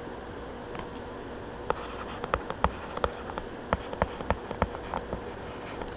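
Plastic stylus tip tapping and clicking on a pen tablet while handwriting numbers: a dozen or so irregular sharp ticks starting about two seconds in, over a faint steady electrical hum.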